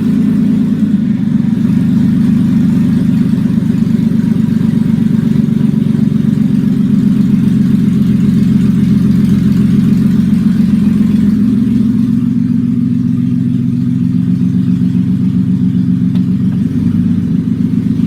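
Toyota Avalon 3.0 V6 running on open exhaust manifolds, with no exhaust system after them, giving a loud, deep, raw exhaust note. The engine holds mostly steady, shifting a little in pitch about a second in and again partway through.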